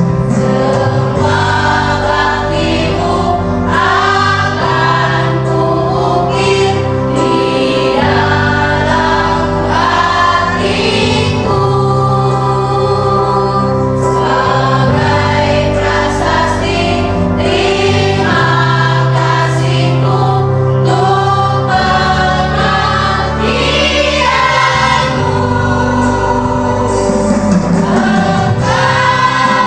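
Mixed choir of women's and men's voices singing a song together.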